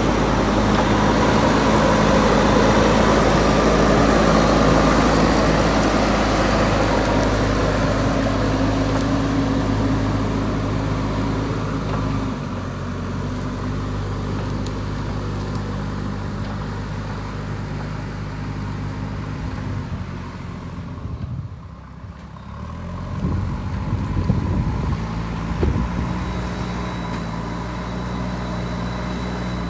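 JCB 3DX backhoe loader's diesel engine working, louder in the first stretch and then settling lower. About two-thirds of the way through it drops off briefly, followed by a few knocks as it picks up again.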